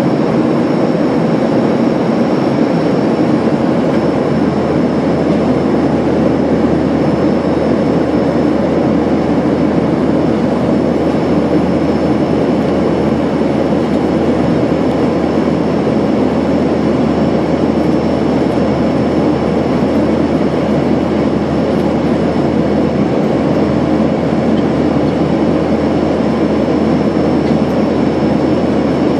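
Steady engine and airflow noise inside a jet airliner's cabin on descent: an even rumble with a faint, steady high whine above it.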